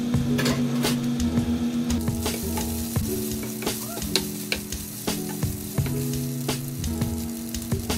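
Pieces of beef sizzling in a frying pan as their juices cook off and the meat browns, with a spoon stirring and scraping them in scattered clicks. Background music with held notes plays underneath.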